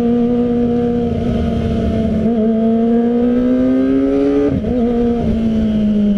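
Kawasaki ZX-25R's 250 cc inline-four with an Arrow exhaust running under way, its note climbing slowly. About four and a half seconds in the note breaks briefly, then carries on a little lower and slowly falls.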